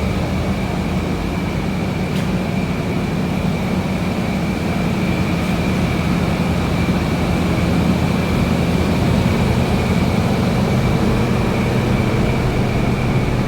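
Car engine idling steadily, with a steady high-pitched whine over the low running sound.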